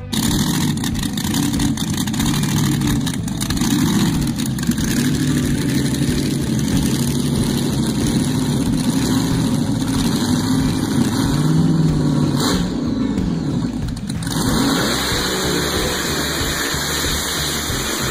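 Immersion blender running continuously in a tall plastic beaker, blending cottage cheese and eggs into a smooth batter; the motor note wavers up and down as the load on the blade changes.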